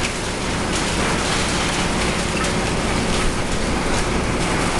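Komatsu BR200T-1 tub grinder running at working speed: the steady drone of its Komatsu SA6D125E2-A six-cylinder diesel under a loud, continuous crackling hiss.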